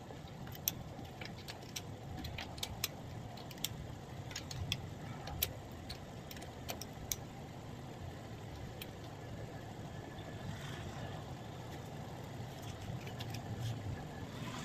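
Irregular clicking from the Audi Q7's turn-signal relay as the indicators switch on and off erratically, a sign of a wiring fault in the wires running through the door. A low, steady rumble runs underneath.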